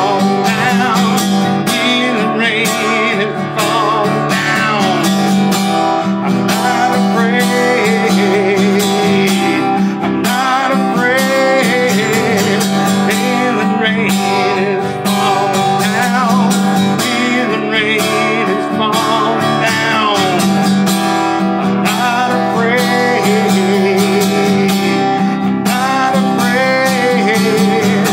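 A man singing, accompanying himself on acoustic guitar.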